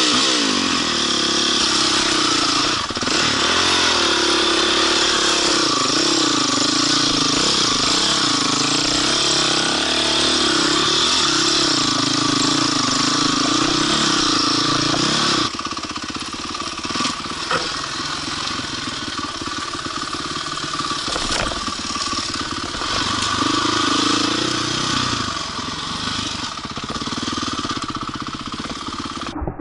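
2007 Honda CRF450R's single-cylinder four-stroke engine being ridden hard on a dirt trail, its pitch rising and falling with the throttle, with wind rush over the helmet camera. The sound drops noticeably quieter about halfway through.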